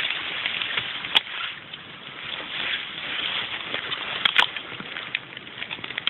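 Leafy plants rustling and crackling as a hand and camera push through them, over a steady hiss, with a sharp click about a second in and two more close together about four seconds in.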